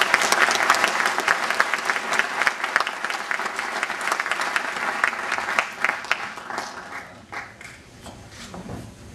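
Audience applauding, dense at first, then thinning out over the last few seconds to a few scattered claps.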